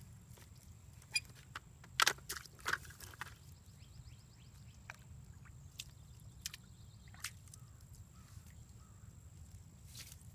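Outdoor creek-side sound during fishing: a steady low rumble with a handful of sharp clicks and light knocks, bunched about one to three seconds in, and a faint quick high trill.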